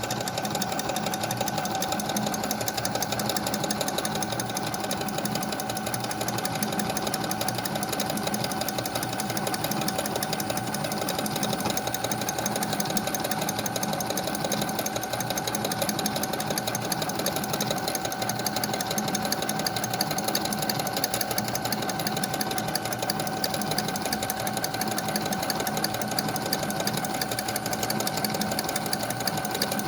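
Brother FS101 computerized sewing machine running without pause, sewing decorative stitch 27 with the N foot: a fast, even needle rattle over a steady motor hum.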